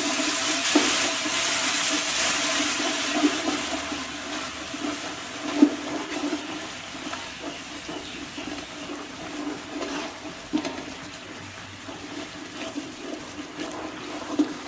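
Chicken pieces in a yogurt and tikka masala paste sizzling in hot oil while being stirred, with a few sharp clicks of the spoon against the pot. The sizzle gradually fades, over a steady low hum.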